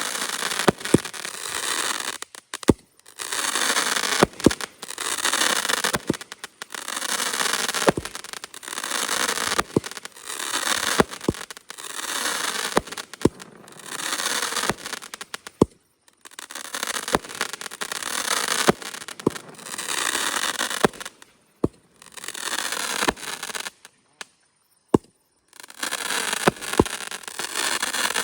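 Repeating aerial firework cake firing shot after shot. Each sharp bang is followed by a second or two of dense crackling, again and again with a few brief pauses.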